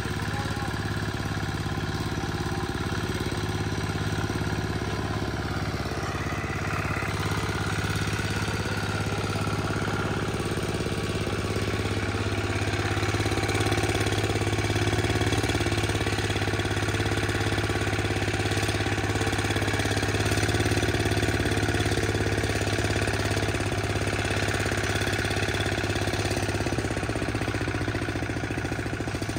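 Small single-cylinder engine of a freshly repaired mini tiller running steadily at idle. It is being run hot to burn off the smoke it puts out after the repair.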